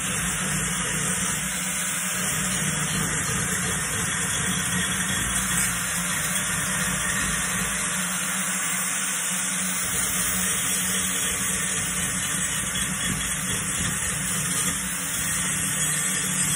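Metabo angle grinder running under load, its abrasive disc grinding into steel plate: a steady high hiss over the motor's hum.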